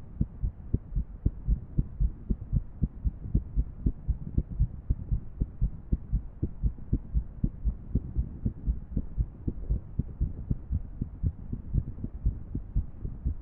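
A woman's heart sounds: repeated low thuds of her heartbeat, a couple or more a second, over a steady low background. The rhythm is irregular.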